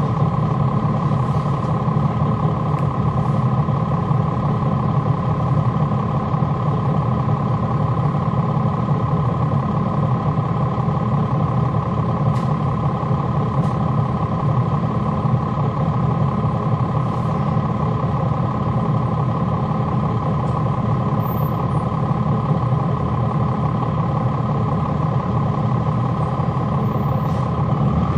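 Cummins ISL9 280 hp inline-six diesel of a 2011 NABI 416.15 (40-SFW) transit bus, heard from on board, running steadily with its engine fans on. A low, even drone with a constant higher whine above it, with no change in revs.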